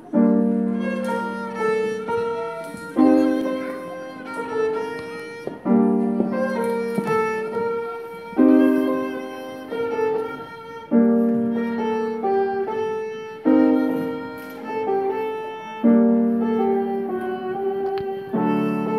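Violin playing an Azerbaijani folk-song melody with piano accompaniment, the piano striking a chord about every two and a half seconds.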